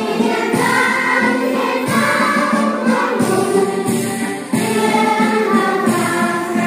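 A song sung by a group of voices in chorus over instrumental backing, continuous and steady in level.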